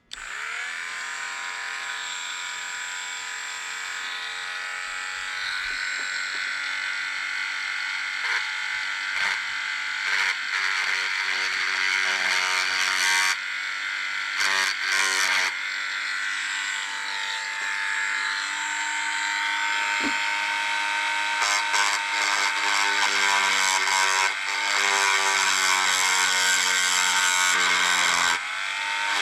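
Small high-speed rotary tool spinning up and running with a steady high-pitched whine while cutting a notch into the back of a plastic fishing-lure lip. The pitch wavers and drops a few times as the bit bites, and the tool stops briefly near the end, then starts again.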